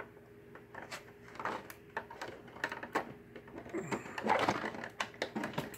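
Light clicks, knocks and rustling from handling the body shell of an RC drag car as it is lifted off the chassis, busiest about four seconds in.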